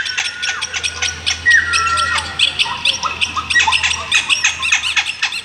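Jungle birds calling at once: a dense chorus of rapid chirps and squawks overlapping, with a few held whistles that step down in pitch.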